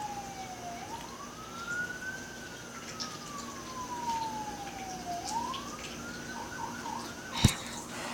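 Faint emergency-vehicle siren wailing, its pitch sliding slowly down and then sweeping quickly back up, twice over. A sharp knock about seven seconds in is the loudest sound.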